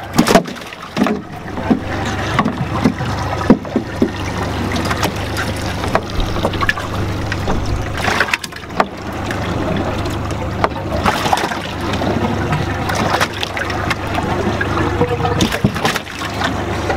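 Boat engine running with a steady low hum, under scattered knocks, clicks and wet slaps as fish and a jig are handled in a water-filled metal fish box.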